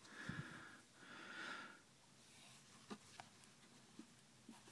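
Near silence: two faint breaths through the nose in the first two seconds, then a few light clicks and taps as a cardboard perfume box is handled.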